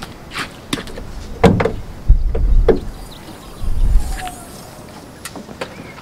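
A string of sharp clicks and knocks with two heavy low thumps, the loudest about two seconds in and near four seconds in.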